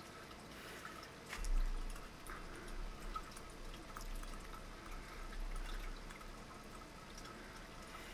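Faint, scattered light clicks and taps of small metal parts of a rotary fly-tying vise being handled and fitted together, with a somewhat louder knock about a second and a half in.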